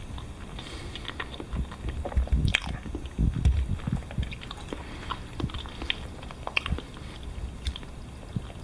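A person chewing and biting a banana with the mouth close to the microphone: soft, irregular wet clicks and mouth sounds.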